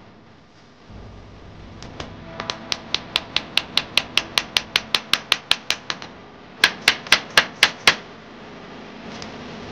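Hammer driving a thin pin into a clamped hardwood frame joint: quick light taps, about five a second, then a short run of about six harder blows.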